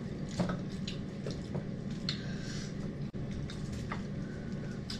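Eating sounds: wet chewing and scattered light clicks and rustles as food is picked by hand from a shared platter.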